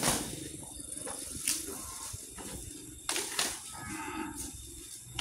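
Asian bull elephant handling thrown grass and leaves with his trunk: rustling and sharp knocks, with a short, low moo-like call about three and a half seconds in.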